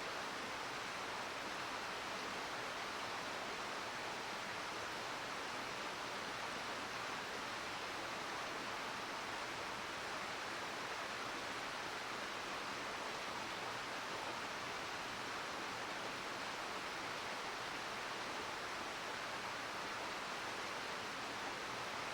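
Steady rushing murmur of a mountain river.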